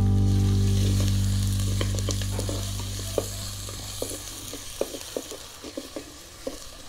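Chopped ginger and fenugreek seeds sizzling in hot oil in an earthenware pot, stirred with a wooden spatula that scrapes and knocks against the pot many times. Background music fades out over the first few seconds.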